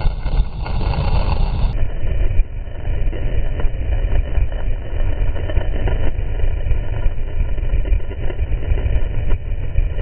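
Wind rushing over a helmet-mounted GoPro's microphone while skiing downhill at speed: a loud, gusting low rumble, mixed with the hiss of skis running over groomed snow.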